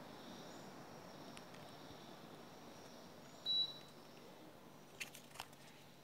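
TCL TAC-07CS/D split air conditioner's indoor unit running, with a steady fan and airflow hiss. About three and a half seconds in, the unit gives one short high beep, the way such units acknowledge a remote command. A few faint clicks follow near the end.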